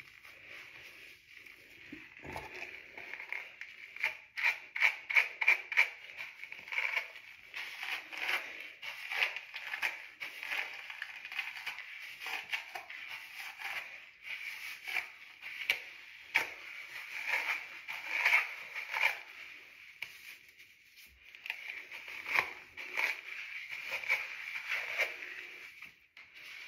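Hands working through wet hair during a shampoo: rapid squishing, rubbing and scratching strokes in quick clusters, with a short lull partway through.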